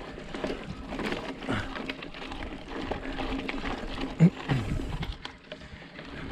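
Mountain bike rolling over a dry, stony dirt trail: tyres crunching on loose gravel and the bike rattling, with a steady low hum underneath. A sharp knock stands out about four seconds in.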